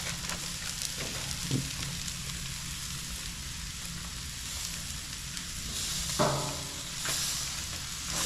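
Blackened black drum fillets sizzling steadily on foil over a gas grill, with faint clicks and scrapes of metal tongs as the fillets are turned.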